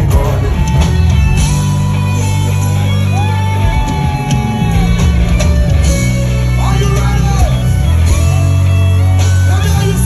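Loud live Afrobeats concert music over a stage sound system: a heavy bass line with a singer's voice over it.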